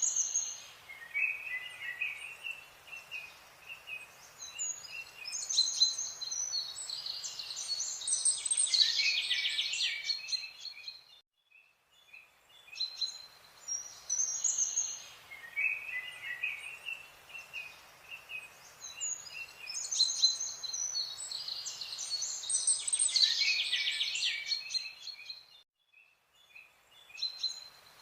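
Several birds chirping and trilling over a faint background hiss, a birdsong ambience that repeats the same stretch about every fourteen seconds.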